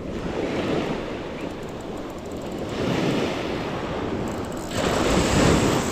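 Surf waves breaking and washing up a beach, in three surges, with wind buffeting the microphone.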